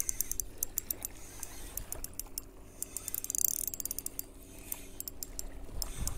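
Spinning fishing reel being cranked by hand, its mechanism giving quick, irregular runs of small clicks.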